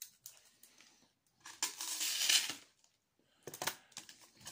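Packing material around a glass being rustled and torn open by hand: a loud burst of crinkling and tearing about a second and a half in, with a few sharp clicks and small handling noises around it.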